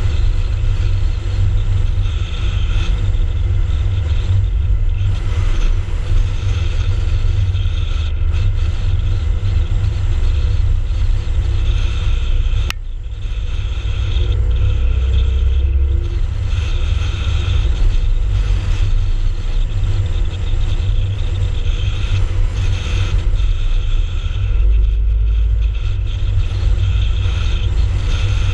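Steady low rumble of a car driving along an open road, picked up by a camera mounted outside the car: engine, tyre and wind noise. There is a single short click about halfway through.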